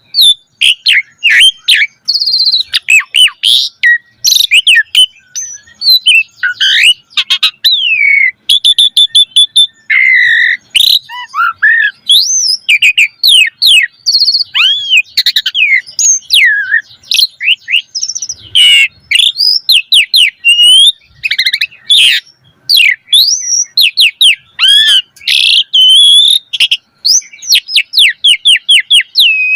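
A pied starling (jalak suren) singing hard and without pause: a rapid, ever-changing stream of whistles, chirps, rising and falling glides and quick rattling note series, a varied song packed with mimicked phrases (isian).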